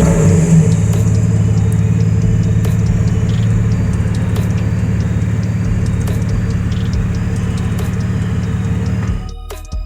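BMW 128i E82's inline-six engine running at a steady low pitch, cutting off abruptly near the end.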